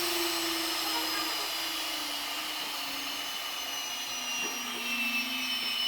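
CNC router spindle whining with a high hiss, its pitch falling slowly and steadily as it winds down, with no wood being cut.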